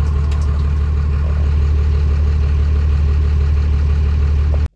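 A vehicle engine idling, a loud, steady low rumble that stops abruptly near the end.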